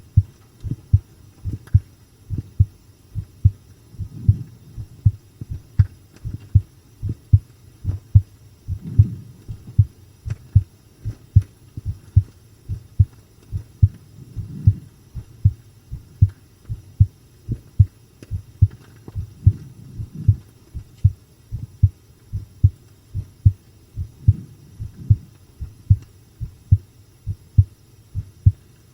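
A woman's heartbeat recorded close against the chest, a steady run of deep lub-dub thuds. It is beating strongly rather than fast while she watches a horror-game playthrough.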